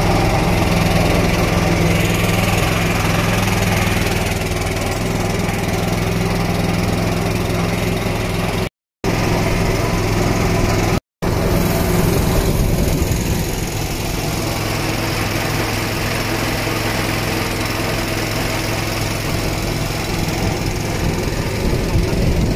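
Small boat's engine running steadily under way, a constant low hum with water and wind noise over it, broken twice by brief silences about nine and eleven seconds in.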